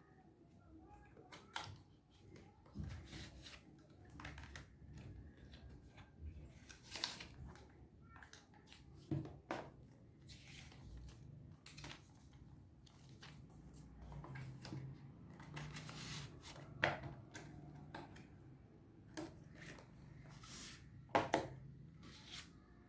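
Irregular handling noises of an iPhone 14 Pro and its packaging: scattered clicks, taps and rustles, with a few sharper taps near the end.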